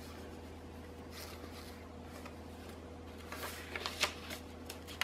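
Paper pages of a handmade junk journal being turned by hand: faint rustling with small soft taps, busier about three and a half to four seconds in, over a steady low hum.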